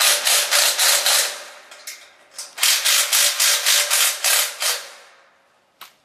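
A hand ratchet tool clicking rapidly, about eight clicks a second, as small bolts are driven in. It goes in two runs with a short pause between them, and the second run fades out.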